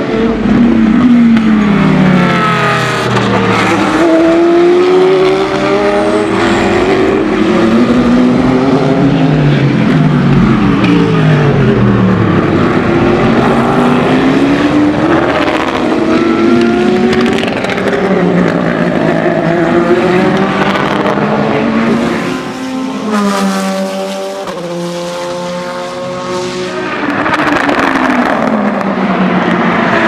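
IMSA prototype and GT race cars passing one after another at full racing pace, their engines repeatedly dropping in pitch and climbing again through gear changes. There is a brief lull about three-quarters of the way through, then a car accelerates hard with a rising engine note.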